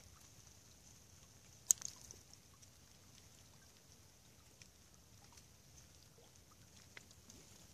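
Faint outdoor ambience of a snowy riverbank: a steady soft hiss with scattered small ticks. A sharp click comes a little under two seconds in, followed by a few smaller ticks.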